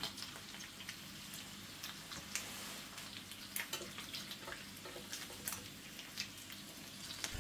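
Bonito steaks sizzling faintly in oil in a cast-iron grill pan, with scattered small pops and crackles.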